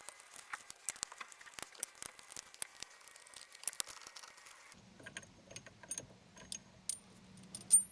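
Light, irregular metallic clicks and ticks of a hand tool working the bolts of a steering-wheel quick-release hub loose, many a second at first, then sparser over a faint low hum, with one sharper click near the end.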